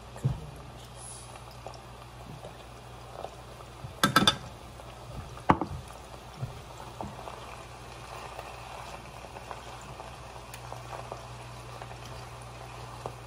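Spinach and garlic sizzling in olive oil in a skillet over a steady low hum, with sharp clinks of utensils against the pan about four seconds in and again about a second later.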